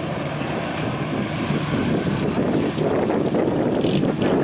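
Classic car's engine running at low speed as the car rolls slowly past, a steady low hum.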